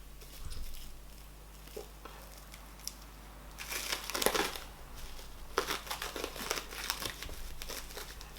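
Plastic wrap crinkling and crackling as a wrapped ball of fufu is unwrapped by hand, in two bouts, the first about three and a half seconds in and the second running from about five and a half seconds to near the end.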